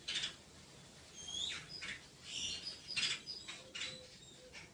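Small birds chirping, with short rising calls and brief high whistles, over a few short rubbing or scratching strokes.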